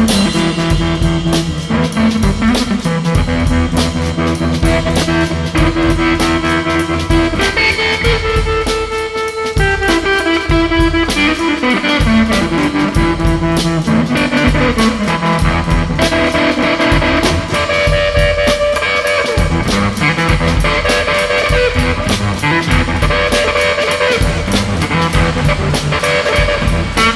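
Instrumental music with guitar and a steady drum beat; no singing.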